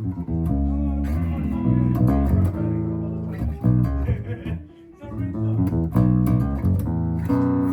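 Electric bass guitar played through an amplifier: a run of plucked notes, with a brief break in the playing about two-thirds of the way through.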